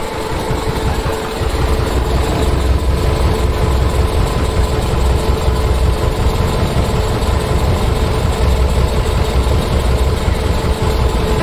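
Heavy truck engine idling with a steady low rumble.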